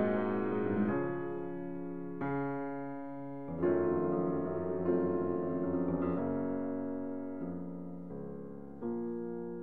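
Slow background music: sustained chords struck about every second and a half, each one fading before the next.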